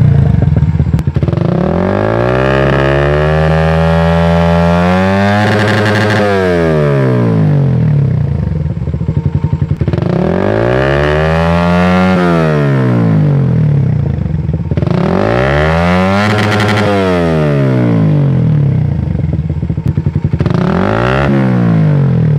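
Suzuki Satria F150 injection's 150 cc single-cylinder engine, breathing through an R9 Mugello full-system racing exhaust, free-revved on its stand to high RPM. It climbs and drops back to idle about four times, the first climb the longest.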